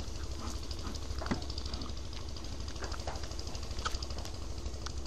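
A bellows bee smoker puffed over an open beehive, with a few short sharp puffs and knocks over a steady low drone.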